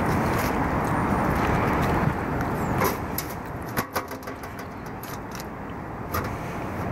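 A loud, even rushing noise that fades about three seconds in, followed by a few sharp metal knocks and taps as the sheet-metal roof drain sump pan is lowered into the cut-out opening in the roof deck and settles.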